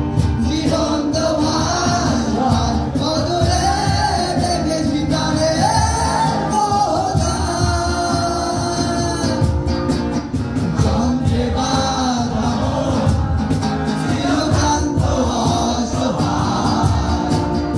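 Live song performed into microphones: a male voice sings the melody over strummed acoustic guitar, played through the hall's speakers.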